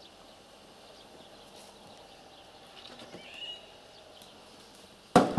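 Quiet outdoor ambience with a single faint bird call about three seconds in. Near the end comes a sudden loud thump.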